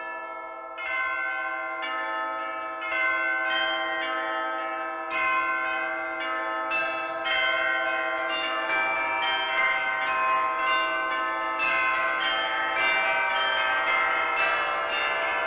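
Church bells ringing, several bells struck one after another with their tones ringing on and overlapping. The strikes come faster and more densely from about five seconds in.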